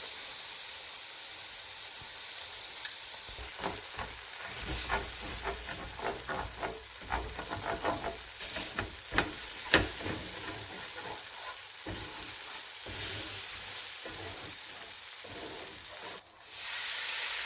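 Hot frying pan sizzling as gravy is started in the juices left from pan-grilling fish. A utensil stirs and scrapes against the pan in many quick strokes through the middle of the sizzle, which briefly drops away near the end.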